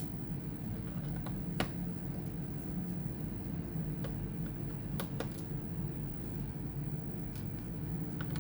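A handful of light, sharp clicks and taps spaced a second or more apart, as of small tools and parts being handled on a laptop case, over a steady low hum.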